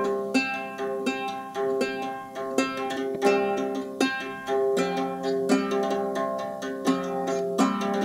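Reproduction Anglo-Saxon harp being plucked by hand, playing an instrumental passage: several ringing notes a second over lower notes that sustain beneath them.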